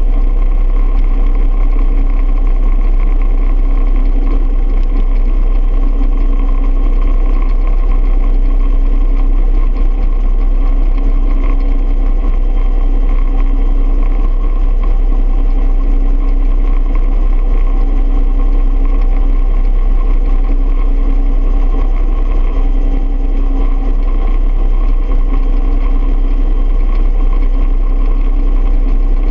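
1968 Bell UH-1 Huey helicopter running steadily, a deep continuous drone with a steady whine over it, with no change in level.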